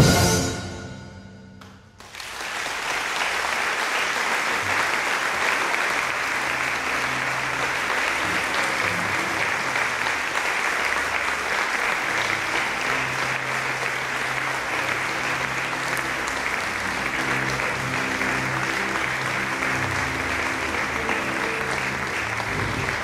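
The orchestra's final chord rings away in the hall, then audience applause starts about two seconds in and continues steadily.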